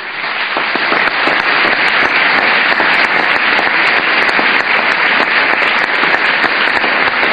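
A large audience applauding: dense, steady clapping that swells over the first second and then holds.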